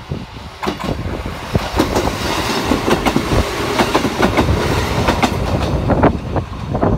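Kotoden 1080-series electric train passing close by, its wheels clacking over the rail joints in irregular strikes over a steady rumble.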